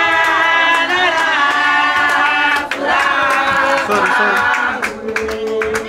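A group of voices singing together in long held notes over a fast, sharp beat.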